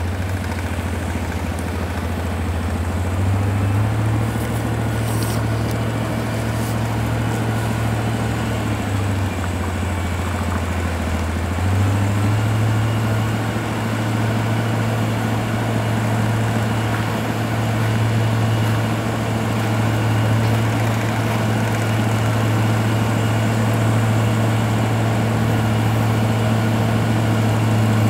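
Diesel engine of a Komatsu GD505A motor grader running steadily under work, with a road roller's engine behind it. The low engine note steps in pitch a few times in the first twelve seconds, then holds steady.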